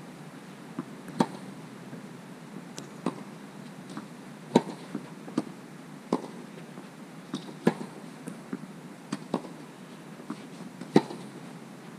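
Tennis ball hit back and forth in a rally: sharp racket strikes about every one and a half seconds, louder and fainter hits alternating, with softer ball bounces in between.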